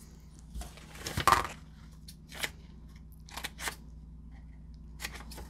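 Scissors snipping paper: a handful of short, separate cuts, the sharpest about a second in, with some paper handling between them.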